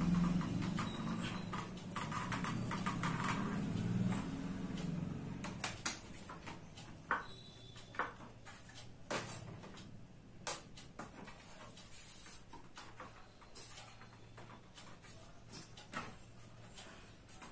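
Plastic snap-fit latches of an LED TV's back cover clicking loose one after another as the cover is pried and lifted off, a sharp click every second or two. Handling rustle of the panel for the first few seconds.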